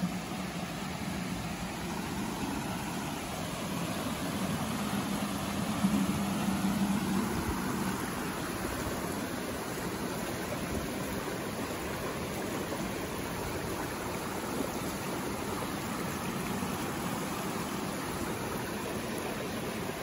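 Shallow woodland creek rushing over rocks and small cascades, a steady wash of water noise. A low steady hum lies under it for roughly the first eight seconds, then fades.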